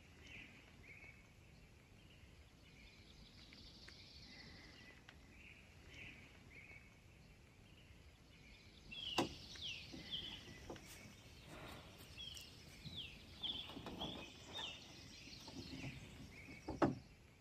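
Faint birdsong: short high chirps that get busier about halfway through, with quick falling notes, over a quiet background. A few sharp knocks come in partway through and again near the end.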